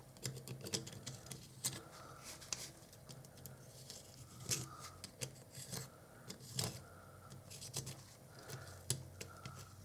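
Irregular faint clicks and light scraping of small metal lens parts being handled and turned, as a threaded part of a Canon FD 55mm f/1.2 lens is worked back onto the barrel.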